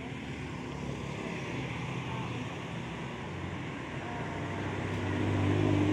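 Road traffic: a vehicle engine running past, growing louder near the end, over steady street noise, with a quiet voice underneath.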